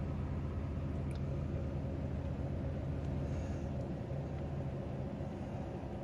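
Jeep Liberty's 3.7-litre V6 engine idling steadily, heard from inside the cabin.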